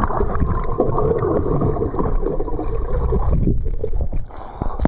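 Pool water churning and gurgling just after a dive, heard muffled through a waterproof camera in the water. It eases off near the end.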